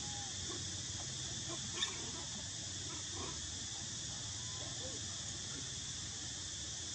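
Steady high drone of insects, with a few faint short squeaking calls from long-tailed macaques. One sharp click about two seconds in.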